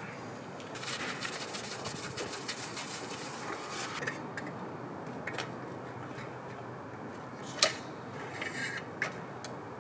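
A new clutch disc and pressure plate for a Land Rover Series III being handled and offered up to the flywheel: metal parts rubbing and scraping, with a few sharp metal clinks, the loudest about three-quarters of the way through.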